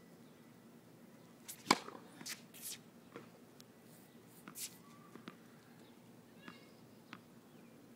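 Tennis ball strikes on a hard court: one sharp racket hit a little under two seconds in, then a few lighter pops of bounces and hits over the next three seconds, and small ticks after.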